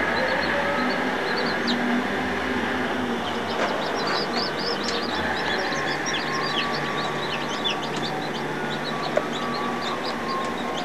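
Newly hatched chicks peeping: many short, high, downward-falling peeps that grow much denser about three and a half seconds in, over a steady mechanical hum.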